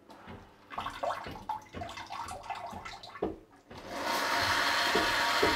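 Brookpad Splashlet 1300RB bidet seat starting its wash cycle: a few seconds of small clicks and brief whirs as the nozzle wand extends, then about four seconds in a steady hiss as the water jet sprays against cling film stretched over the bowl.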